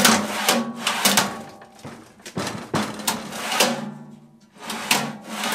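Steel drawer with an expanded-metal bottom being pushed shut and pulled open on full-extension drawer glides, with a string of sharp metal clanks and rattles.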